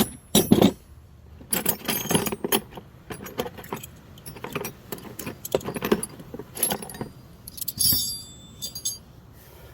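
Steel punches clinking and rattling against each other as they are handled and sorted, with several sharp metallic clinks that ring briefly.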